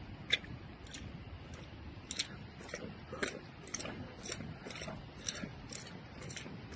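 Footsteps crunching on grit and loose stones on a wet asphalt road, about two steps a second, over a low steady rumble.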